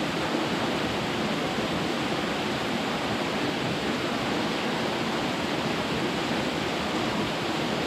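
A waterfall pouring steadily over layered rock: an even, unbroken rush of falling water.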